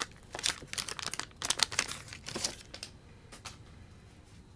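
Wax paper wrapper of a 1989 Donruss baseball card pack crinkling and tearing as it is opened. The crackling is busiest in the first two and a half seconds and thins to a few faint rustles after that.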